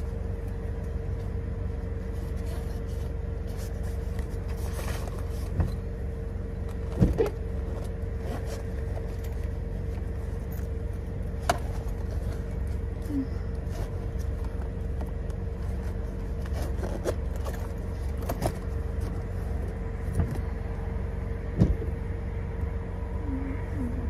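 Steady low rumble and hum of a car idling, heard from inside the cabin, with a few short clicks and knocks scattered through it.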